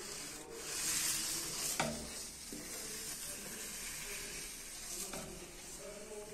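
Fork-type dough mixer working dough, giving a steady hissing, churning noise. One sharp click about two seconds in.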